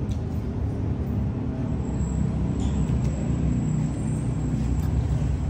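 Road traffic: the steady low rumble of motor vehicles running close by.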